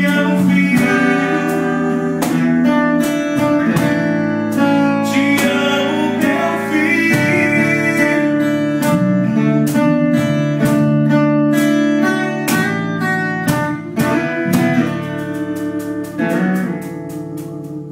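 Live acoustic band: a man singing over a strummed acoustic guitar and electric bass, with the playing trailing off near the end.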